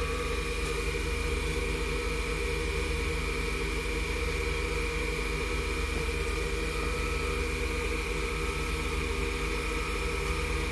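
Wood lathe motor running steadily at reduced speed with a constant hum, while friction wax is worked onto the spinning workpiece.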